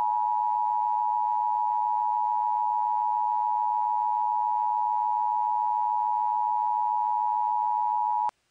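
Emergency Alert System attention signal: a steady two-tone alarm held for about eight seconds, cutting off abruptly near the end.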